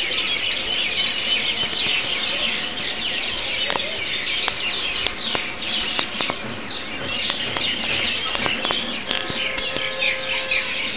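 A dense chorus of birds chirping without pause, with a few sharp clicks in the middle and a steady tone with overtones near the end.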